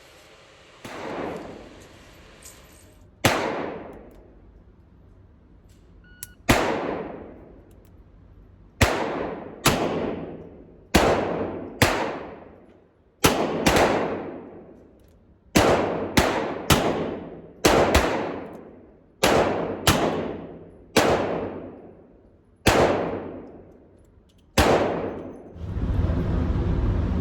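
Revolver fired double action in a string of about seventeen shots, some single and some in quick pairs, each followed by a long fading ring. Near the end a steady noise comes in.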